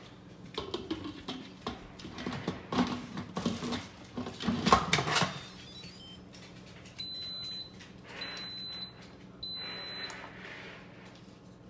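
The metal lid of an Instant Pot electric pressure cooker is set on the pot and twisted shut with clanks and scrapes. About seven seconds in, the cooker gives three long, evenly spaced high beeps: the signal that it has started its programmed pressure-cook cycle.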